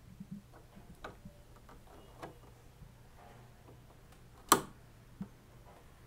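An Ethernet cable's RJ45 plug being pushed into the LAN port on the back of an LG TV: a few faint taps and scrapes, then one sharp click about four and a half seconds in as the plug latches, and a smaller click just after.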